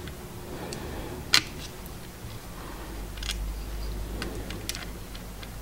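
A screwdriver turning a small screw into the brush holder on the back of an alternator: a few faint metallic clicks, with one sharper click a little over a second in.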